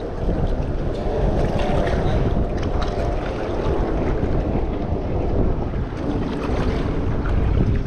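Steady wind buffeting the microphone, with water lapping in the shallows.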